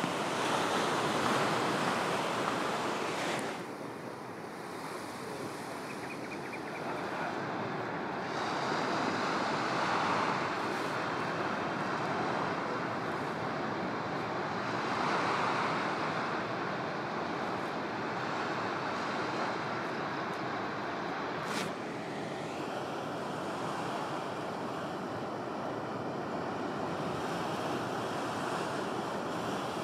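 Ocean surf breaking and washing toward shore, swelling and easing every several seconds, with some wind rumbling on the microphone. Two short clicks are heard, each followed by a slight change in the sound.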